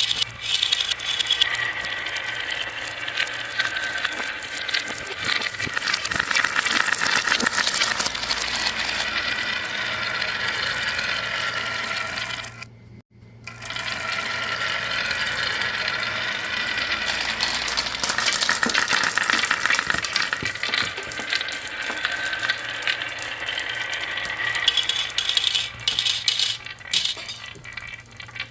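Many marbles rolling and clattering down a marble run track, a dense, continuous rattle of small clicks and knocks. The clatter breaks off briefly about halfway through, then starts again.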